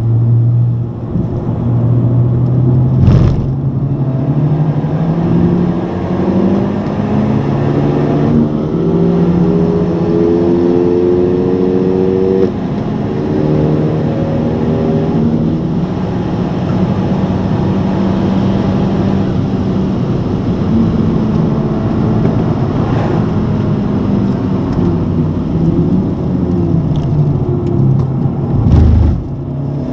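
Honda Civic Type R's turbocharged 2.0-litre four-cylinder engine heard from inside the cabin, pulling hard at full throttle. Its pitch climbs through the revs and drops at each upshift, then falls away near the end as the car slows. There is a sharp thump about three seconds in and another near the end.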